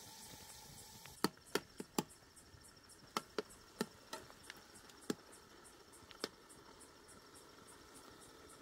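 A metal ladle knocking and scraping against a metal cooking pot as food is stirred, about ten sharp clanks, most of them between one and six seconds in. Crickets chirp steadily in the background.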